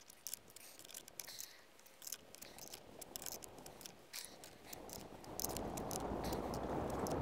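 Light metallic clicks and taps of a nut and ring terminal being fitted by hand onto a LiFePO4 battery cell's terminal post. From about five seconds in, a steady rushing noise rises beneath the clicks.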